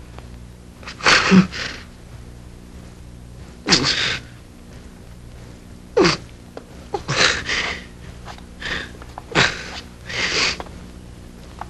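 A man sobbing: about six sharp, breathy sobs and gasps, a second or two apart, over a faint steady hum.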